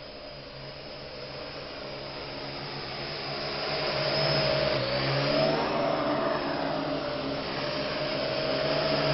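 Parrot AR.Drone 2.0 quadcopter's electric motors and propellers buzzing in flight, growing louder over the first few seconds. The pitch dips and rises again about five seconds in as the motors change speed.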